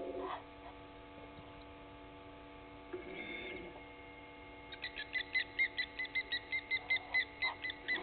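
A night animal calling: a steady series of short, clear whistled notes, two to three a second, that begins about five seconds in and quickly grows louder. A brief fainter call sounds about three seconds in, and a pulsing animal chorus cuts off just after the start, over a constant electrical hum.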